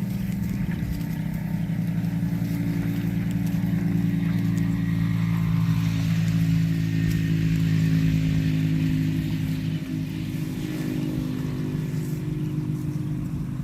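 An engine running steadily, a little louder about halfway through.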